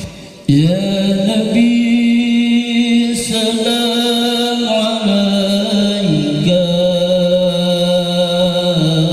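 Male qori reciting the Quran in melodic tilawah style, holding long notes. After a short breath about half a second in, the voice glides up, steps higher at about a second and a half, and drops back down at about six and a half seconds.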